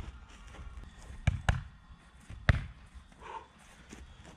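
Punches smacking into boxing focus mitts: one hit right at the start, a quick pair just over a second in, and one more about two and a half seconds in.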